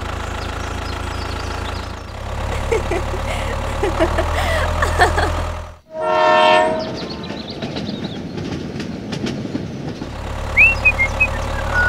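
A steady low engine drone breaks off about six seconds in for a loud, single train horn blast of about a second. A rolling train follows, with rumble and clicking wheels on the rails. The low engine drone comes back near the end.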